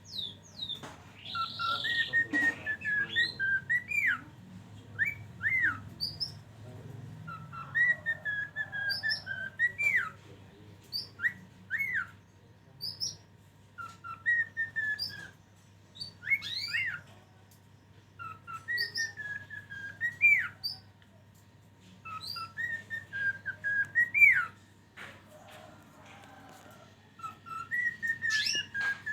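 A caged songbird, a 'flak' kept by a bird hobbyist, whistling the same short phrase over and over, about every two seconds. Each phrase is a run of clear whistled notes that slur downward, broken by quick upward-sweeping notes, with short pauses between phrases. A faint steady hum runs underneath.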